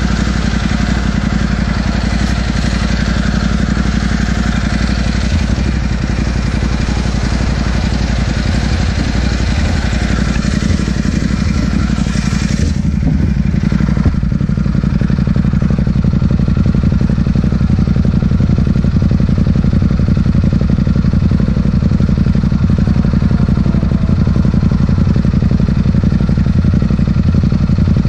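Ducati motorcycle's twin-cylinder engine idling steadily at the roadside, with highway traffic rushing past during the first half.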